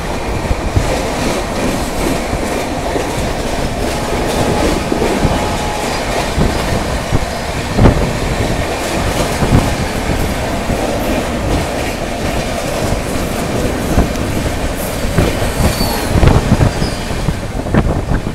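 Moving passenger train heard from a coach doorway: a steady rumble of wheels on the rails with the rush of air, occasional clacks at rail joints, and a few brief high wheel squeals about three quarters of the way through.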